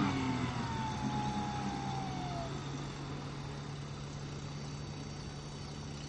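Outboard motor running steadily as a low hum. In the first couple of seconds a long cry slides down in pitch over it.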